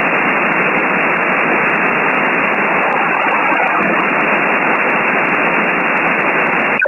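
Steady shortwave static from an RTL-SDR receiver tuned to the 20-meter ham band in upper sideband: an even hiss through the receiver's narrow sideband filter, with no station readable on the frequency.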